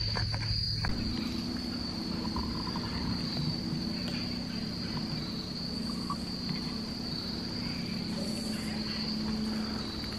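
A steady chorus of insects in woodland, one high, unbroken trill, with a low steady hum underneath from about a second in.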